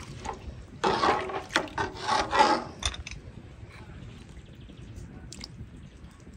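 Long metal slotted spoon scraping and stirring in a large aluminium pot of milk and rice. There are rough, rasping scrapes for about two seconds starting a second in, then a few faint clinks.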